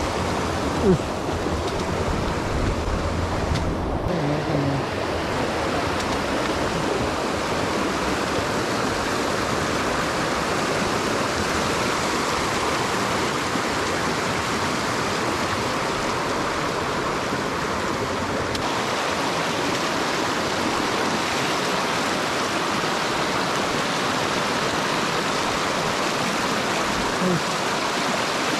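Mountain stream rushing and splashing over rocks in a steady flow. A low rumble sits under it for the first few seconds.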